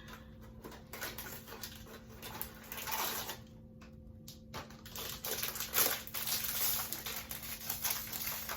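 Koala's March biscuit snack being handled: quick crackling clicks and rustles of its packaging and crunchy biscuits, with a short lull near the middle and denser clicking from about five seconds in.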